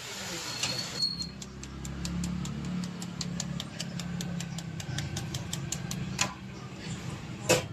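Rapid, even ticking, about three to four ticks a second, over a low steady hum, with two sharper knocks near the end.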